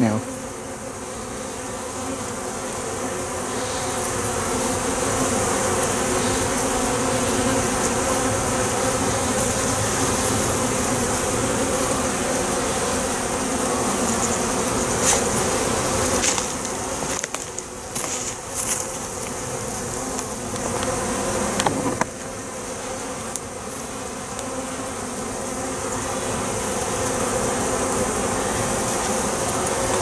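A colony of honeybees humming steadily in an open hive. The hum swells over the first few seconds, and there are a few faint knocks around the middle. It is the raised hum of a queenless colony stirred up by a newly introduced caged queen, which the beekeeper takes for the message spreading through the hive that a queen has arrived.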